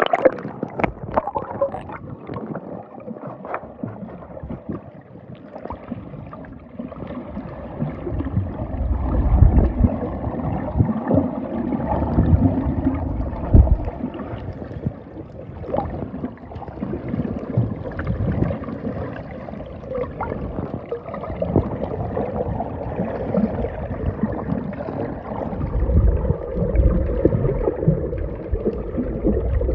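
Water sloshing and gurgling, with irregular surging low rumbles and small splashes.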